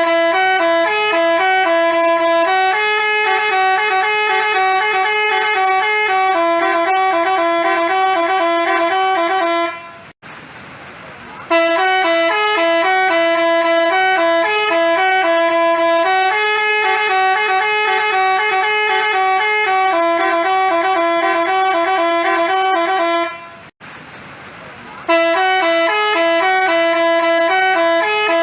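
Basuri-type telolet bus horn playing a tune of quickly alternating notes. The tune breaks off twice, for about a second and a half each time, into quieter noise.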